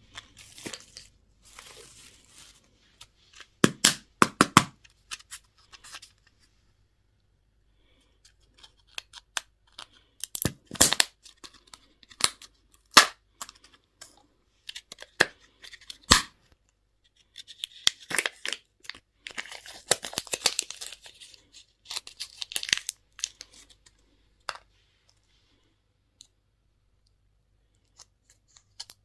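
Candy and toy packaging being torn open and handled, close up: tearing and crinkling of wrappers broken by sharp clicks and taps, in irregular bursts with short pauses.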